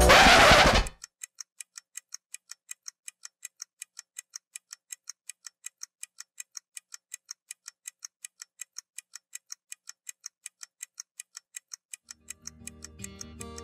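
Ticking-clock sound effect: quick, even, high-pitched ticks, several a second, after loud music cuts off about a second in. Soft guitar music comes in near the end.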